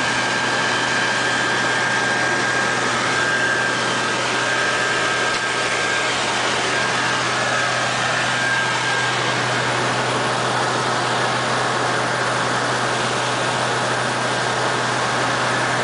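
Diesel engine running at a steady idle, a constant low hum with a thin whine on top and no change in speed.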